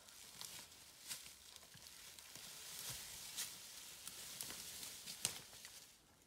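Faint rustling and crunching of dry leaves and twigs on a forest floor, with scattered small cracks and crackles.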